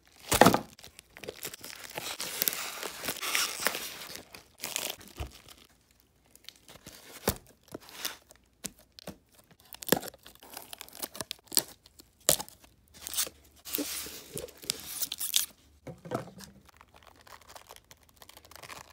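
Packing tape on a cardboard shipping box slit with a blade and torn away, the cardboard flaps scraping and knocking as they are opened. Irregular scrapes and sharp clicks, with two longer tearing stretches, one near the start and one about two-thirds through.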